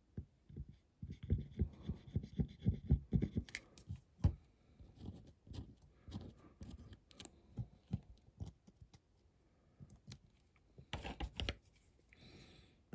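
Close handling sounds of a small die-cast toy car body and a glue bottle: a run of small taps and clicks, thickest in the first few seconds and sparser after, as a thin foil strip is glued and pressed on. There is a short rustle near the end.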